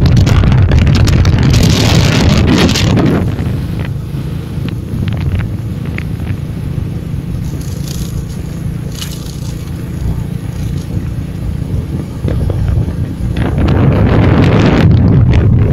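Wind buffeting the microphone on a moving motorbike, over the rumble of the bike and its tyres on the road. The buffeting is heavy for the first few seconds, eases off in the middle and comes back strongly near the end.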